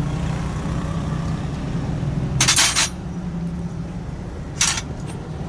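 Metal parts or tools clinking twice, once about halfway through and more briefly near the end, over a steady low hum.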